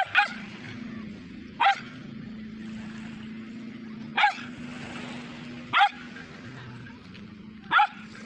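Small dog barking: six short, high barks, two in quick succession at the start and the rest one to two seconds apart, over a steady low background noise.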